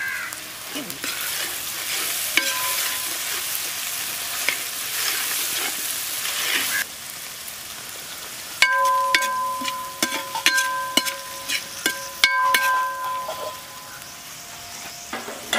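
Onions, green chillies and freshly added chopped tomatoes sizzling in hot coconut oil and ghee in a wide uruli pan as they are stirred. The sizzle cuts off suddenly about seven seconds in. After that, a stirring spoon knocks and scrapes against the pan in a run of sharp clicks, each leaving the pan ringing with clear tones.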